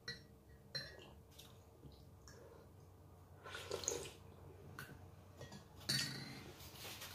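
Metal spoon clinking against a ceramic mug several times, with a short slurp from the spoon just before four seconds in and a louder clink about six seconds in.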